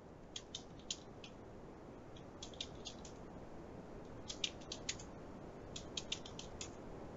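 Faint computer keyboard keystrokes in four quick bursts of about five keys each, typing a five-character password into each of four fields in turn.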